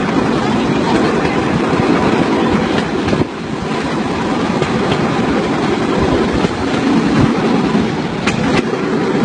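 Bamboo train (Cambodian norry) running along the rails at speed, heard from on board: a loud, steady rattling clatter of the wheels and platform on the track, with a few sharper clicks near the end.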